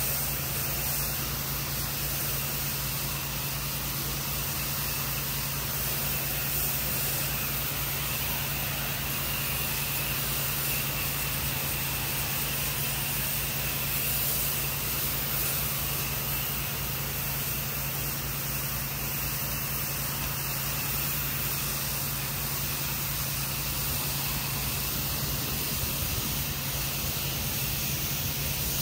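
Pressure washer running steadily, with the engine's even drone under the hiss of the high-pressure water jet from a wand striking the concrete patio.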